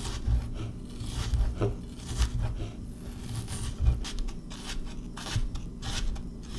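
Chef's knife mincing on a cutting board: quick, irregular chops, several a second, with the blade rocking and scraping across the board.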